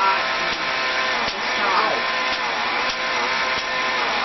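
Homemade Van de Graaff generator running: the steady whine of the electric motor driving its belt, with a few sharp cracks of spark discharges.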